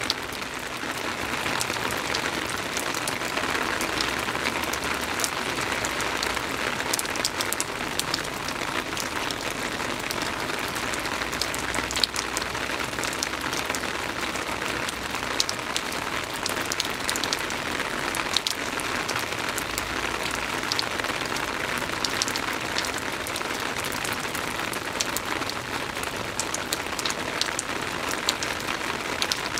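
Steady soft rain falling, with many scattered close drops ticking sharply on a surface.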